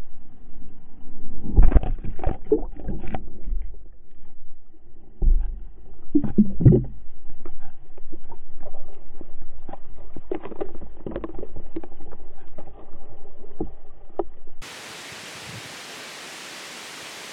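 Muffled splashing and repeated knocks picked up through an action camera's waterproof housing at the water surface as a pike thrashes beside it. About three seconds before the end this gives way to a quieter, even hiss of wind in the reeds.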